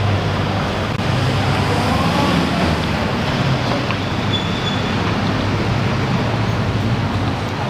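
Steady ambience of an indoor shopping-mall walkway: a constant low hum under an even hiss, with faint distant voices. A brief high beep sounds about four seconds in.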